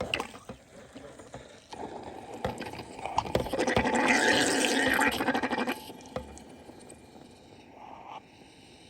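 Steam wand of a De'Longhi Stilosa espresso machine steaming milk in a pitcher: a hiss that builds about two seconds in, is loudest for a few seconds, then drops off sharply about six seconds in.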